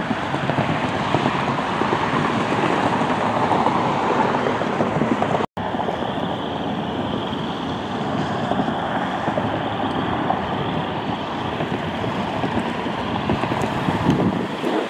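Steady rushing noise of road traffic and wind on the microphone, broken by a sudden dropout about five and a half seconds in.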